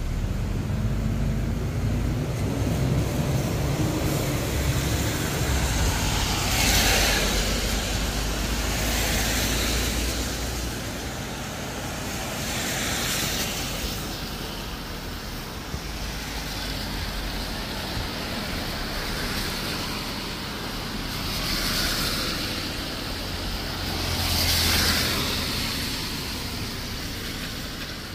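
Road traffic on wet streets: cars passing one after another, their tyre hiss swelling and fading about five times over a steady background wash, with a low rumble through the first ten seconds or so.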